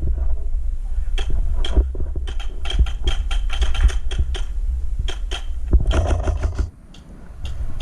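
A fast, irregular run of sharp clicks and snaps, at times about five a second, over a steady low rumble on the microphone; it drops out briefly about seven seconds in.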